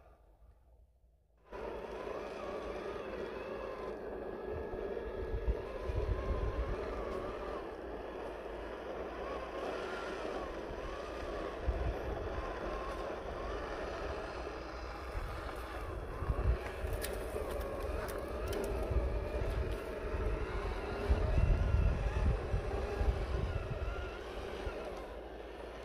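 Electric motor and geared drivetrain of a 1/10-scale RC rock crawler whining, the pitch wavering up and down with the throttle as it crawls up a dirt slope. It starts suddenly about a second and a half in, with occasional low rumbles.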